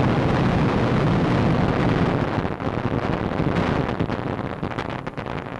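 An explosion blowing apart a wooden building: a sudden loud blast followed by a long, low rumble that slowly fades.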